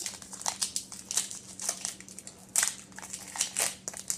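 Foil wrapper of a Pokémon card booster pack crinkling in the hands as it is worked open, in a series of irregular crackles, the loudest about two and a half seconds in.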